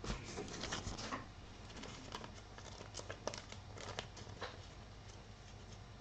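Trading cards being handled and flipped through by hand: a quick run of soft clicks and rustling in the first second, then scattered light clicks.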